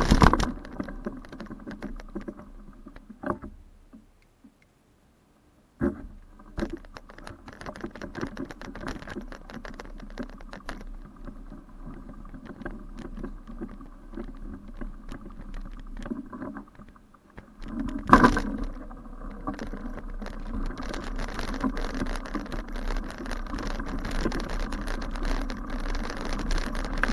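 Bicycle rattling and ticking as it rolls over a bumpy grass footpath, with a hard knock about 18 seconds in and a steadier rolling noise building in the second half. The sound drops out briefly about four seconds in.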